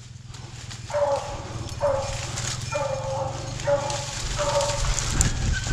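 Rabbit hounds baying on a rabbit's track, a steady string of similar calls about once a second, over a low steady hum.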